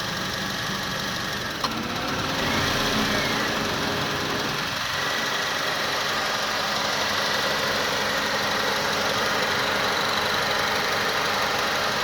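2006 Honda Accord engine idling roughly with the air conditioning on. A sharp click comes about one and a half seconds in, after which the engine note shifts and grows louder and steadier, consistent with the A/C compressor cycling in, loading the engine almost to a stall and the ECU bringing the idle back up.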